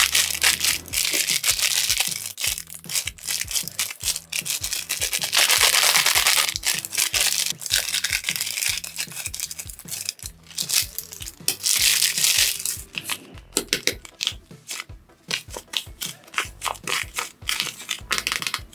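Paper squishy being squeezed and crumpled in the hands: dense crinkling and crushing of paper, with longer stretches of scrunching about five to seven seconds in and again near twelve seconds. Background music with a steady beat runs underneath.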